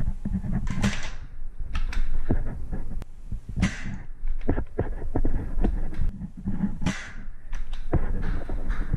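Heavy breathing close to the microphone, a loud breath about every three seconds, over low thumping and scattered small clicks of gear being handled.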